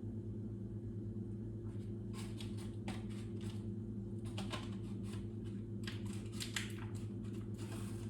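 Light irregular clicks and rustling of small objects being handled, starting about two seconds in, over a steady low hum.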